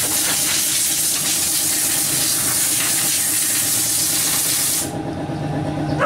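Compressed air from an air duster gun blowing into a desktop PC case: a loud, steady hiss that stops suddenly about five seconds in. A half-horsepower air compressor runs steadily underneath.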